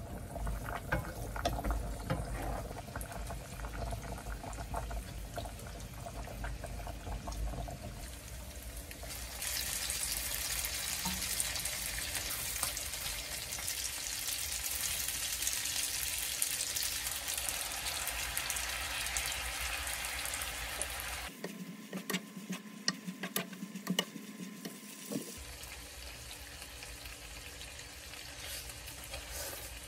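Oil sizzling in a nonstick frying pan with shrimp and sliced garlic, stirred with a wooden spatula. About nine seconds in the sizzle turns louder and hissier as boiled spaghetti goes into the pan, with occasional clicks and knocks of the spatula against the pan.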